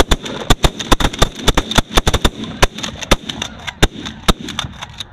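A rapid volley of about twenty shotgun shots from several hunters firing at once at a flock of snow geese overhead. The shots come thick for the first three seconds, then thin out to a few last shots.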